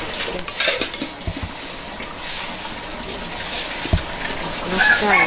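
Metal ladle stirring and scraping food in a wok over a wood fire, the wet contents sizzling, with a sharp knock of the ladle on the pan about four seconds in. A rooster starts crowing near the end.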